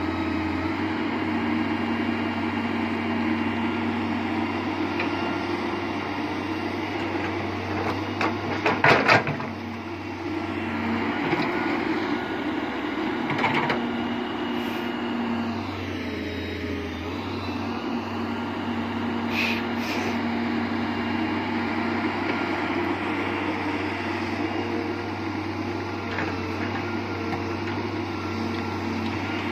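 Diesel engines of an excavator and a tractor running steadily while digging and loading soil, with a burst of loud clanks and knocks about nine seconds in and a couple of single knocks later.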